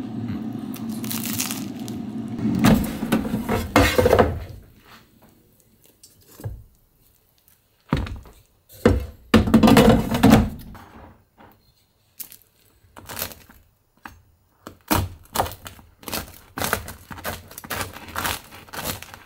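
An air fryer's fan runs steadily, then stops. Knocks and clatter follow as the toasted bread is set down on a wooden cutting board. Then a knife saws through the crusty oven-toasted bread in a quick series of loud crunches and cracks.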